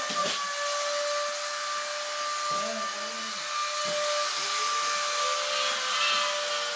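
A small electric motor running steadily: an airy rush with a steady high whine.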